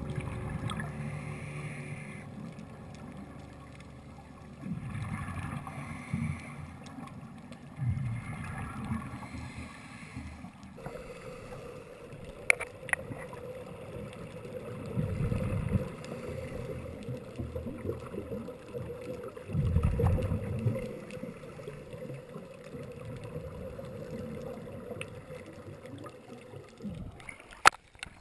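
Muffled underwater sound through a camera housing: rumbling bursts of scuba regulator exhaust bubbles every few seconds, with a steady hum from about a third of the way in. Near the end the camera breaks the surface with a few sharp splashes.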